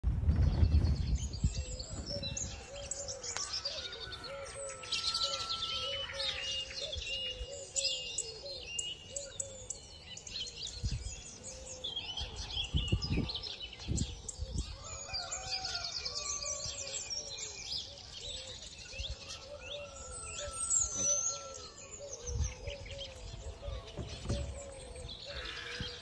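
A chorus of wild birds singing and calling over one another, with many short high chirps and a lower call repeated steadily underneath. A few low rumbles break in, at the very start, about halfway through and near the end.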